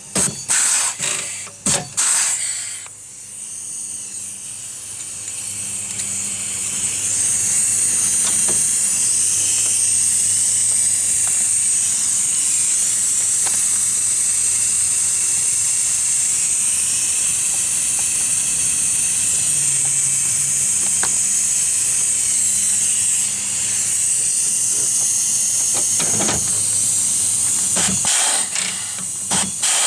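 Pneumatic rivet gun hissing a steady, high stream of compressed air, with a few sharp clicks and knocks at the start and again near the end as the gun works the rivets.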